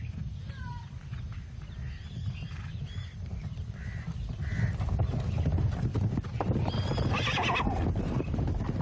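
Horses galloping: a steady run of hoofbeats. A horse whinnies loudly about seven seconds in.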